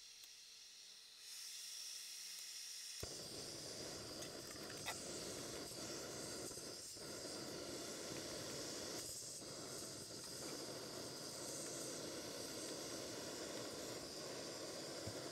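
MSR PocketRocket canister stove: a faint gas hiss starts about a second in, then the burner catches about three seconds in and runs with a steady rushing hiss under a small titanium pot of water.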